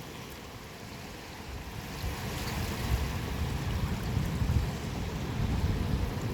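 Sea waves washing, with wind rumbling on the microphone; the rumble grows louder after about two seconds.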